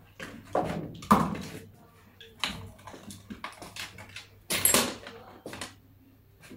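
Irregular knocks, scrapes and rustles from objects in a heap being touched and shifted by hand, loudest about a second in and again past the middle, over a low steady hum.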